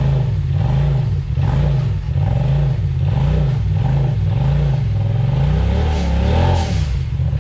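Side-by-side UTV engine revved in quick, repeated throttle blips, its pitch rising and falling a little under twice a second. Near the end a higher, wavering rise-and-fall joins in.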